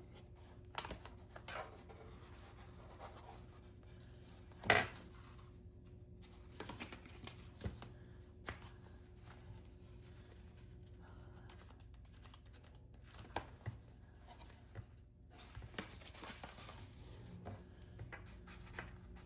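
Tiny dot stickers being peeled from a sticker sheet and pressed onto a paper planner page: faint rustling and scratching with scattered light clicks, the sharpest a little under five seconds in, over a faint steady hum.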